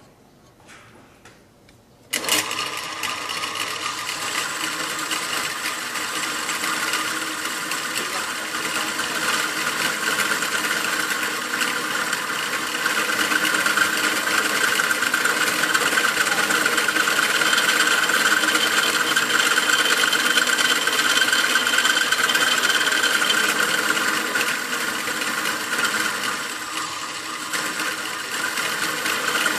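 Drill press switched on about two seconds in and running steadily as it drills into a clamped steel piece, with a high whine that grows a little louder through the middle.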